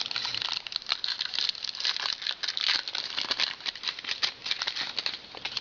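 Hockey card pack being torn open and handled: the wrapper crinkles and rustles in a dense run of small crackles.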